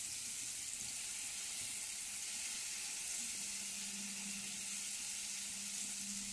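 Marinated chicken pieces sizzling in hot oil in a nonstick pan, a steady high hiss. A faint low hum joins about three seconds in.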